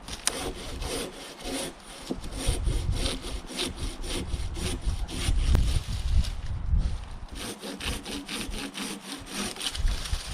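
Silky KatanaBoy folding hand saw cutting through a log, with steady back-and-forth strokes of the blade through the wood.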